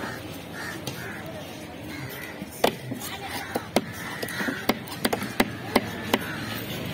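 Heavy cleaver chopping fish pieces on a wooden chopping block: one sharp chop a little before three seconds in, then a quick, regular run of chops about three a second.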